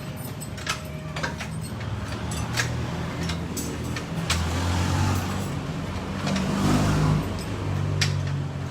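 Suzuki Samurai engine running and revving up from about the middle, loudest about seven seconds in, then easing back. Scattered sharp clicks sound over it.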